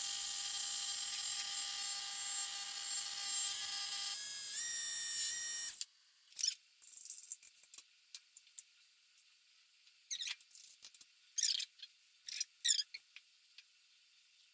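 A small electric coffee appliance running with a steady high whine that shifts up in pitch near the end and cuts off suddenly about six seconds in, followed by several short, high squeaks.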